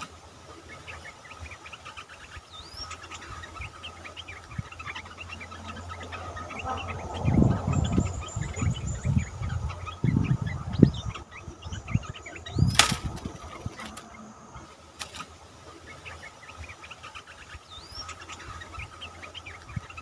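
A bulbul flapping and fluttering at a bamboo trap cage: a run of loud, low, ragged wing bursts about halfway through, then one sharp knock against the cage. Short rising bird chirps and a steady insect drone sound faintly behind.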